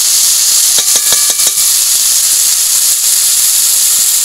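Malabar spinach and potato sizzling steadily in hot oil in a wok. About a second in come a few short metal clinks that ring briefly.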